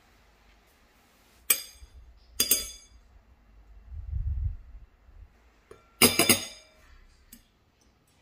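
Metal spoon clinking against bowls: two sharp ringing clinks a second apart, a soft low thump, then a quick cluster of clinks about six seconds in.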